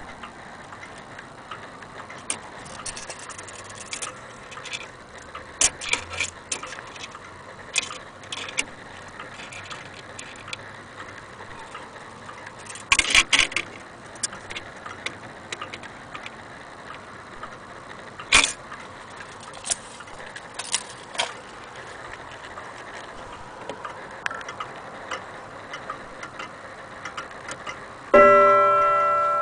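Antique German Vienna wall clock ticking, with scattered sharp clicks from handling at the case. Near the end the clock strikes once on its gong, a loud ringing tone that slowly fades.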